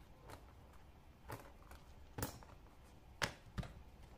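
Handling noise at a leather-working bench: a handful of light, sharp taps and knocks as leather pieces and tools are moved about on a cutting mat, the loudest about three seconds in.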